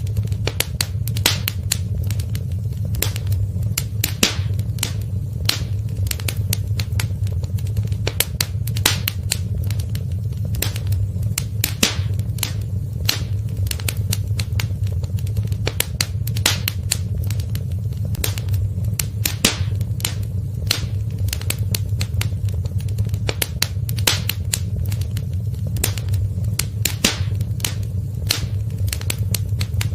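Wood fire in a fireplace crackling, with frequent irregular snaps and pops over a steady low rumble of the burning.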